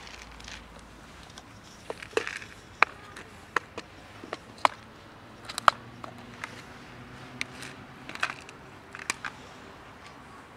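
Snap-lock plastic food container being handled and opened. About a dozen sharp, irregular plastic clicks and knocks come as its lid clips are flipped open.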